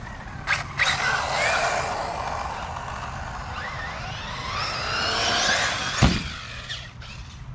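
Nitro engine of a 1/8-scale RC buggy (Kyosho MP10) revving, its high whine climbing as it accelerates at full throttle into a jump. A sharp thud comes about six seconds in, at the ramp, and the engine drops off after it.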